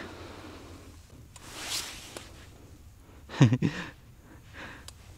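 A soft rustle a little under two seconds in, then a man's short wordless vocal sound about three and a half seconds in.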